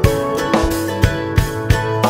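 Background music: upbeat instrumental with guitar and a steady drum beat.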